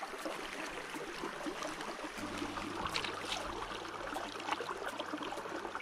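Shallow stream running over stones, with light splashes and ticks of water as leafy greens are rinsed in a basin in the stream.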